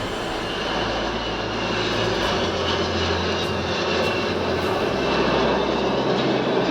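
Kawasaki C-1 transport jet in flight, its two turbofan engines giving a steady roar that grows slightly louder, with a thin high whine slowly dropping in pitch as it passes.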